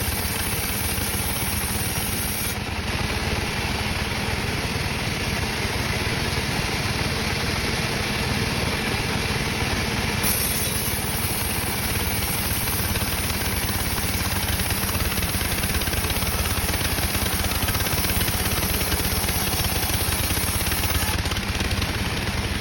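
Sawmill machinery running steadily: a dense engine-like drone that holds the same pitch and level throughout.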